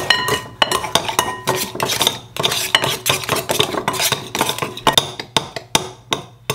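A metal utensil cutting butter into flour in a glass mixing bowl, clinking and scraping against the glass in quick, uneven strokes, some strikes leaving the bowl briefly ringing.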